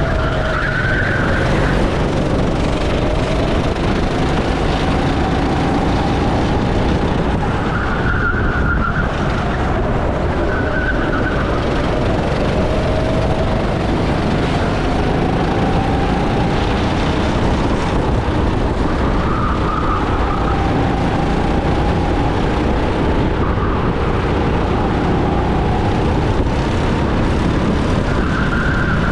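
Go-kart engine heard from on board, its pitch rising and falling with the throttle through the corners and straights. Short tyre squeals are heard about five times.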